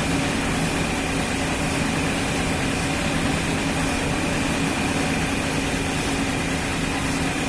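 A motor running steadily at an even speed, with a constant hum.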